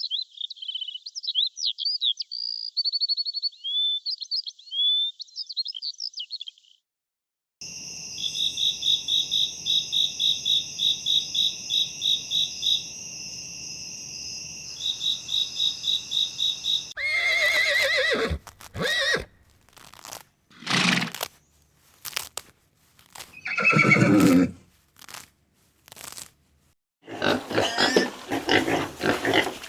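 A string of farm sounds. First high bird chirps, then a fast, steady, rhythmic chirping. Then a horse whinnies several times, falling in pitch, and loud crunching starts near the end.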